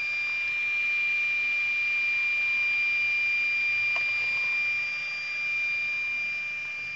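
A steady high-pitched electronic tone, unbroken and unchanging, with a faint click about four seconds in.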